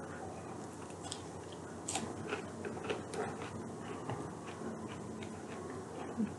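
Close-miked chewing of a chicken Caesar salad, with irregular small crunches and mouth clicks.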